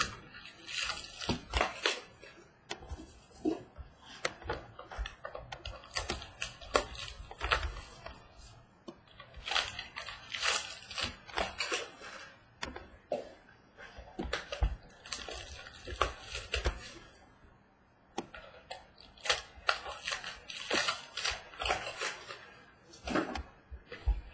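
Foil-wrapped trading card packs and their cardboard boxes being handled: irregular crinkling and crackling of the foil, with small taps and clicks as packs are pulled out and set down on a table, coming in bunches with short pauses.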